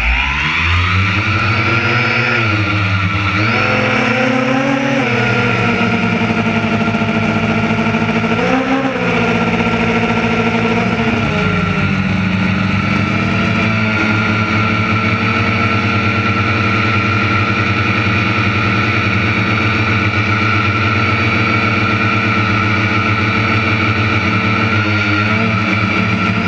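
Engine of a harvest machine speeding up at the start, then sagging and recovering several times before settling to a steady speed about halfway through.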